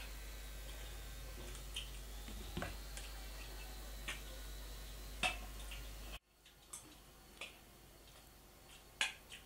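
Metal spoons clinking and scraping against ceramic bowls as people eat: scattered light clicks over a low steady hum, which cuts out abruptly about six seconds in.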